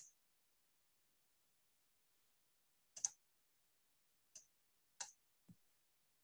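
A handful of short, sharp clicks from someone working at a computer, picked up through a video-call microphone. There is a pair about three seconds in, then single clicks roughly half a second to a second apart, with near silence in between.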